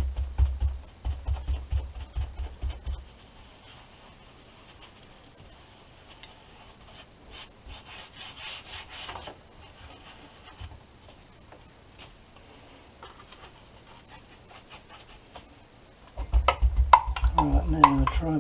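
Paintbrush scrubbing back and forth on an acrylic-painted board in quick rhythmic strokes, each stroke giving a dull thump. The strokes stop after about three seconds, leaving only faint brushing for a long stretch. Near the end the strokes return and a few sharp clinks come as the brush knocks against a water pot.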